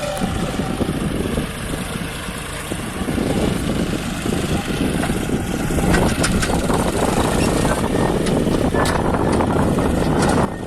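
John Deere 5050D tractor's three-cylinder diesel engine running under heavy load, with strong wind buffeting the microphone. The sound grows louder about three seconds in and again around six seconds, then drops suddenly near the end.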